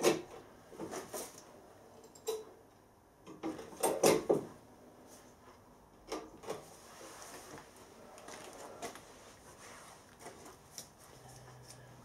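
Hand-operated hydraulic test pump being worked to pressure-test a steam boiler fusible plug: scattered clicks and clunks from the pump lever and fittings, with a louder cluster of knocks about four seconds in.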